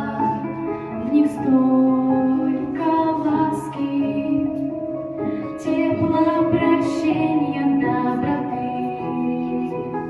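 A woman singing a Christian song over musical accompaniment.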